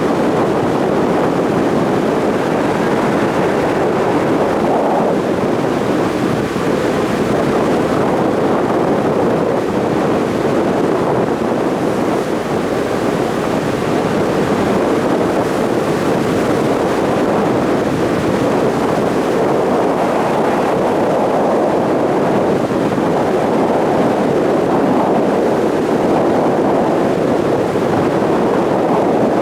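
Steady rush of wind and water from a ferry under way at sea, with wind buffeting the microphone.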